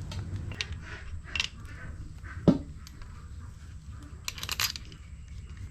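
Metal tools and parts clinking and knocking during an engine teardown: scattered light clicks, one sharp knock about two and a half seconds in, and a quick run of bright metallic clinks near the end.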